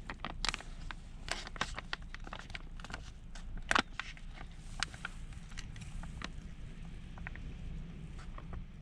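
Scattered light taps and clicks at an irregular pace, thicker in the first four seconds with one sharper knock about four seconds in, over a steady low rumble.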